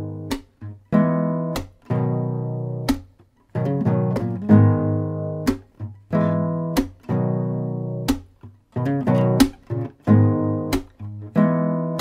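Acoustic guitar music: strummed chords that ring and fade, with a sharp percussive tap on a steady beat about every second and a quarter.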